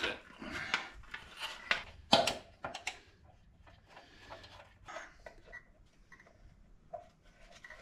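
Scattered clicks and knocks of motorcycle parts and hand tools being handled during reassembly, busiest and loudest in the first three seconds, then fainter occasional ticks.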